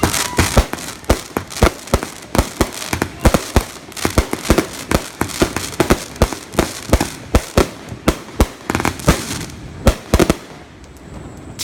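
Fireworks going off in a rapid, irregular string of sharp bangs, about four a second, that stops about ten seconds in.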